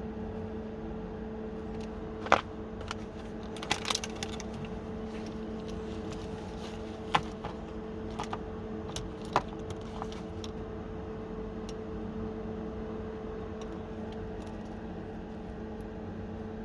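Scattered light clicks and knocks of small parts and packaging being handled, over a steady low hum. There is a sharp click about two seconds in, a cluster of clicks around four seconds, and a few more up to about ten seconds in.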